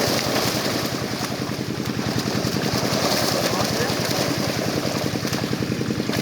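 A small engine running steadily at an even idle-like pace, with a rapid regular beat.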